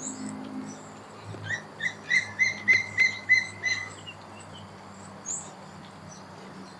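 A bird calling a run of about nine repeated clear notes, roughly three a second, swelling then fading, with a few brief high chirps from other birds near the start and after the run. A faint steady low hum lies underneath.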